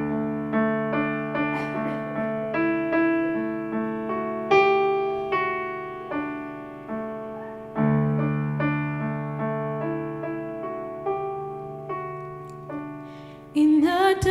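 Piano playing a slow introduction of sustained, decaying chords, a new chord struck every second or so. A singer's voice comes in near the end.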